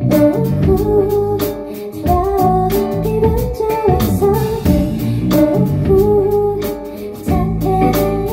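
A woman singing a song through a microphone, with a live band's accompaniment in which guitar is prominent.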